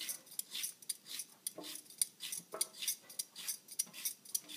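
Vegetable peeler scraping along the skin of a Persian cucumber in quick repeated strokes, about three a second.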